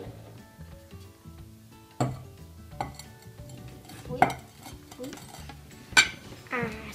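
Ceramic dishes knocking together three times, about two seconds apart, as blackberries are tipped from a porcelain serving dish into a ceramic bowl. Soft background music plays underneath.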